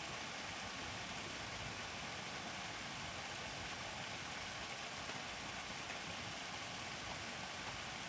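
Small waterfall splashing steadily into a shallow stream pool: a constant rush of falling water.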